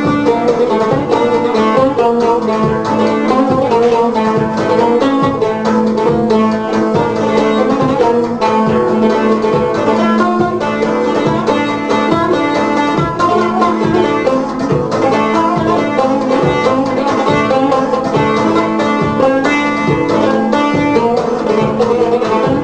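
A twelve-string cümbüş, the fretless Turkish banjo-lute with a metal bowl and skin head, plays a quick, busy melody of plucked notes with a plectrum. Behind it runs a backing with a steady beat and a held low note.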